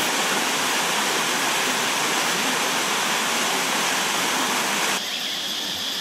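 Steady rush of falling water from a waterfall. About five seconds in it cuts abruptly to a quieter steady hiss with a high-pitched ringing tone.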